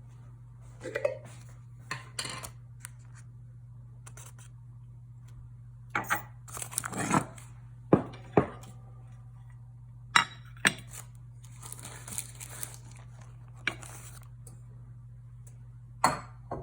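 Hands handling kitchen things: scattered clicks and knocks of items being set down, and bursts of crinkling like paper or plastic being unwrapped, over a steady low hum.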